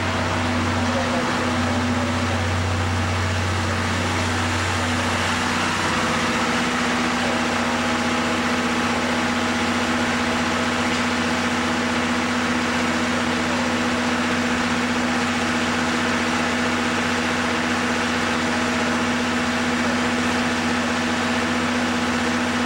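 Steady hum of a train's equipment running while it stands at the station. A low drone fades out about five seconds in, and the steadier hum carries on.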